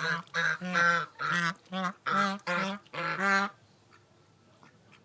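Domestic waterfowl calling: a quick run of about ten short honking calls in the first three and a half seconds, then they stop.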